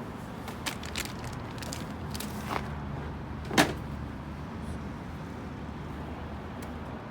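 A few light clicks and one sharper knock about three and a half seconds in, from parts being handled during reassembly of the snowblower's differential gear and axle, over a steady low background rumble.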